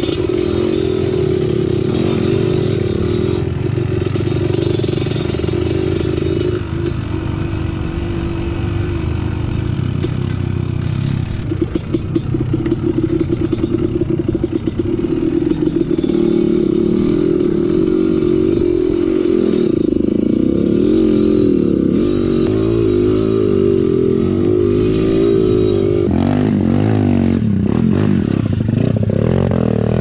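Trail motorcycle engine running under load off-road, its revs rising and falling as the throttle is worked, with rattling and clatter from the bike over rough ground about twelve seconds in and again near the end.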